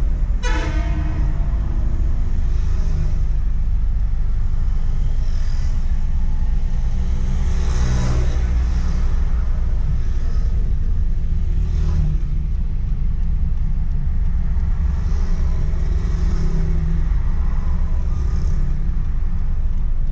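Steady low road and engine rumble inside a moving car's cabin, with a few short horn toots from the surrounding traffic.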